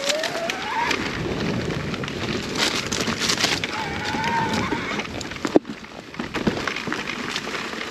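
Electric mountain bike ridden over rough, overgrown singletrack: a continuous crackle of tyres on dirt and debris and brush scraping past. A brief rising whine sounds near the start and a short whine about four seconds in. A single sharp knock comes about five and a half seconds in.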